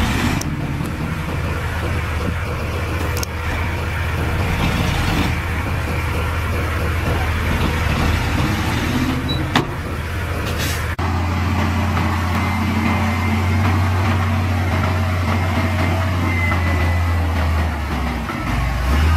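Heavy diesel engines of earthmoving machines running with a steady low drone. There is a single sharp click just under ten seconds in, and the engine sound changes abruptly about eleven seconds in.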